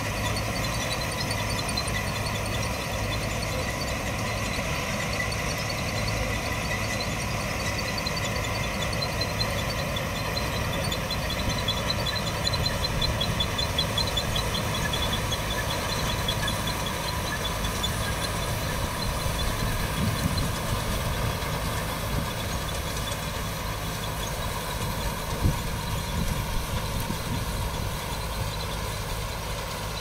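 KS Group mini combine harvester running under load while cutting and threshing wheat: a steady engine drone with a constant mechanical whine and fast, fine ticking from the working machinery. It is a little louder around the middle, with one short knock near the end.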